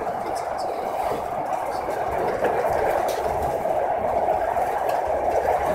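Aeroexpress electric train running at speed, heard from inside the carriage: a steady running noise with a few faint clicks from the wheels and track.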